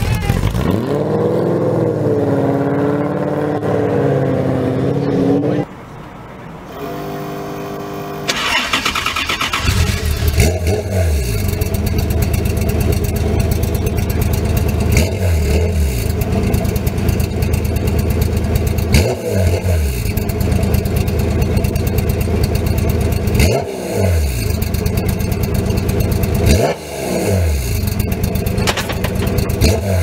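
A first-generation Ford GT pulls away and accelerates, its engine note rising. After a short quieter stretch, a Radical race car's engine runs at a rough idle, blipped up and back down about every four seconds.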